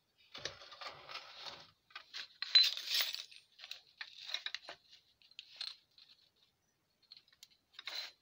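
Metal parts of a homemade mini lathe being handled, clinking and rattling irregularly. The loudest clatter comes about three seconds in, followed by scattered lighter clicks and one more clatter near the end.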